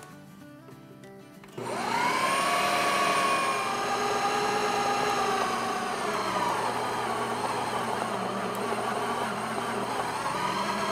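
Countertop food processor motor switching on about one and a half seconds in, its whine rising quickly as it spins up, then running steadily while kneading flour, water and oil into naan dough. Its pitch sags a little as the dough comes together and loads the motor.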